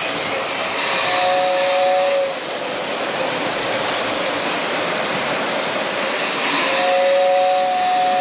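O-scale model train whistle blowing a two-note chord twice, a blast of about a second and then a longer one starting near the end, over a steady rushing running noise from the layout.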